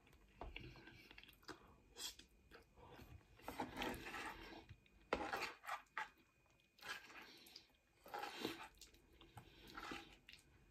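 Faint, wet chewing of soft pasta by a toothless eater, gumming each mouthful in short separate bouts, with a few sharp clicks of the spoon against the pan.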